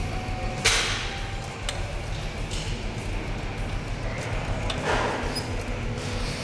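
Cable-machine weight stack clanking during close-grip lat pulldowns: two sharp metal knocks about four seconds apart, a little under a second in and again near five seconds, with a few lighter clicks between, over a low steady rumble.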